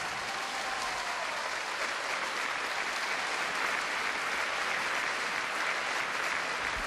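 A hall audience applauding steadily, many hands clapping together.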